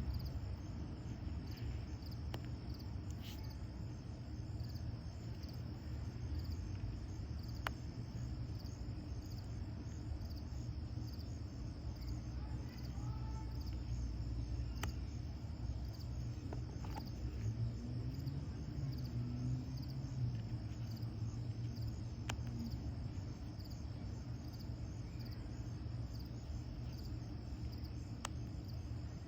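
Crickets chirping steadily as a constant high-pitched trill, over a low steady rumble, with a few faint clicks.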